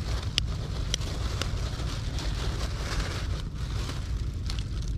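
Wind buffeting the microphone, a steady low rumble, with a few light clicks on top.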